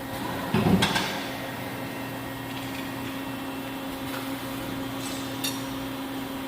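CNC machine running with a steady electrical hum, with a few metallic clunks about half a second to a second in and a light click later on.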